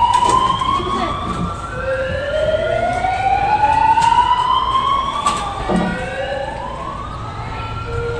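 Several wailing sirens sounding together, out of step, each rising slowly in pitch over about three seconds and then dropping back to start again.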